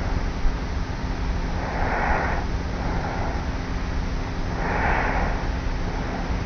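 A sleeping young woman breathing slowly and evenly with light snores, breaths about three seconds apart. It is recorded on a cassette tape recorder lying on her pillow, under a steady tape hiss.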